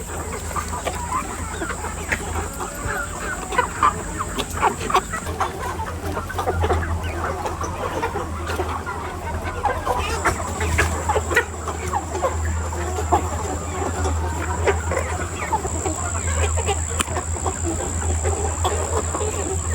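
A flock of 100-day-old chickens clucking and calling, many short calls overlapping continuously, over a steady low hum.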